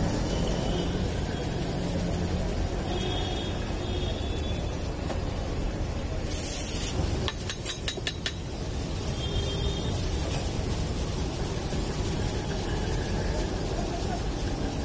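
Busy street ambience at a roadside food stall: steady traffic noise with indistinct voices. About six seconds in there is a short hiss, followed by a quick run of clicks.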